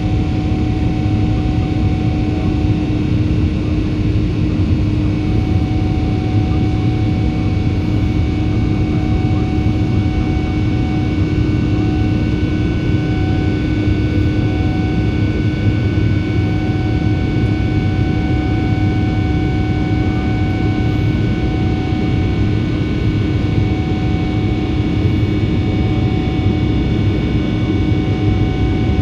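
Cabin noise of a Boeing 777-300ER with its GE90 jet engines running: a steady rush of engine and airflow noise under a constant hum, holding level throughout.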